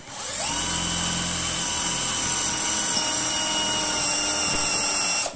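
Mustool 20 V cordless hammer drill spinning up with a quick rising whine, then running steadily at full speed as a small drill bit bores into a hard wooden beam. It cuts out just before the end.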